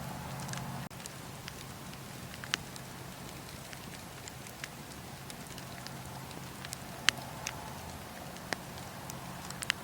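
Wood fire burning in a fireplace, a steady soft hiss with sharp crackles and pops at irregular intervals, the loudest about seven seconds in.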